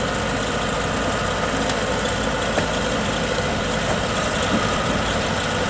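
Kubota DC-95 rice combine harvester's diesel engine running steadily as the tracked machine crawls slowly forward.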